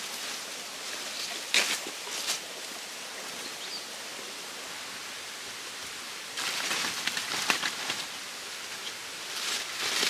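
Large palm fronds rustling in bursts as they are handled and laid on a shelter frame, loudest about a second and a half in and again from about six and a half to eight seconds in, over the steady hiss of a flowing stream.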